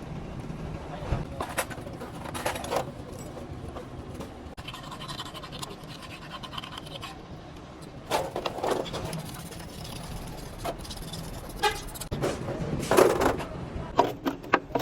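Metal parts clinking and scraping as they are handled, in irregular knocks and short clatters with a low steady hum underneath.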